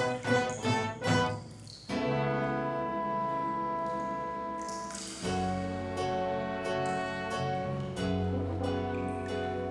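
Orchestral musical-theatre accompaniment with no singing. A run of quick notes gives way about two seconds in to a held chord, and about five seconds in a fuller, lower sustained chord enters.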